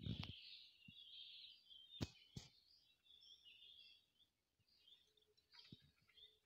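Faint chirping of small birds, irregular and high-pitched. A low thump at the very start and two sharp clicks about two seconds in stand out above it.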